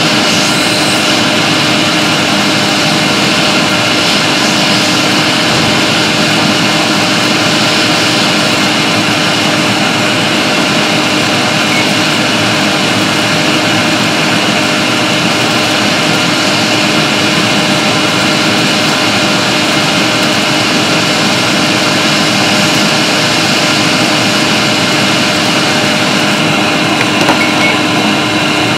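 Hot air rework station blowing over a MacBook logic board while the backlight IC and nearby resistors are desoldered. It is a steady rushing hiss with a constant fan tone, and it cuts off suddenly at the very end.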